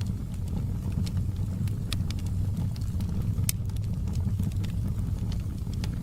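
Wood fire burning in a fireplace: a steady low rumble with scattered sharp crackles and pops, one louder pop about three and a half seconds in.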